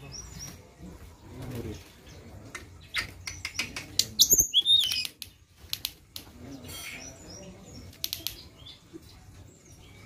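Caged hill blue flycatcher calling: short high whistled notes and quick series of sharp clicks, loudest about four seconds in with a twisting high whistle.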